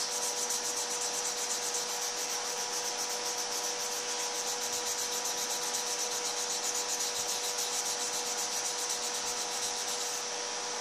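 A felt-tip magic marker scrubbing back and forth on coloring-book paper in quick, even strokes, about five or six a second, colouring in a hidden-picture page. A faint steady hum runs underneath.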